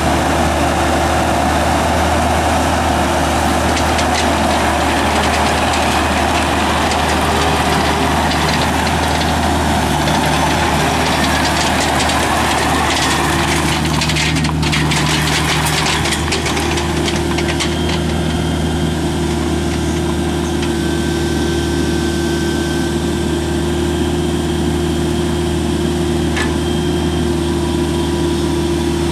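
Bobcat E26 mini excavator's diesel engine running steadily while the boom, arm and bucket are worked on the hydraulics. The engine note shifts about halfway through, together with a run of light knocks and clanks.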